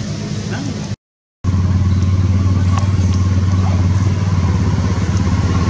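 A steady low engine hum, like a motor running at idle. It drops out for about half a second roughly a second in, then carries on slightly louder.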